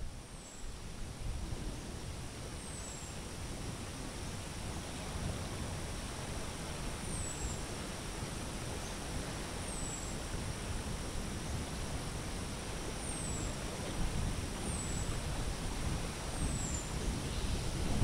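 Steady low outdoor rumble, with a thin, high call sliding down in pitch repeated about seven times at irregular intervals of a couple of seconds.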